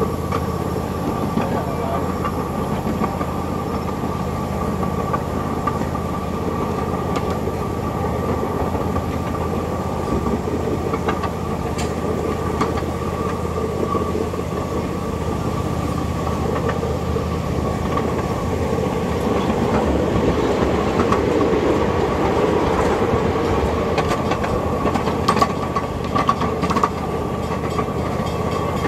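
Miniature train running steadily along its track, heard from on board: a constant rumble of the running gear and wheels with a faint clatter, and a few sharper clicks near the end.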